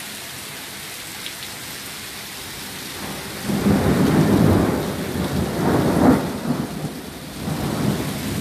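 Heavy rain falling steadily, then about three and a half seconds in a low rolling rumble of thunder builds, peaks twice and fades over several seconds, swelling again near the end.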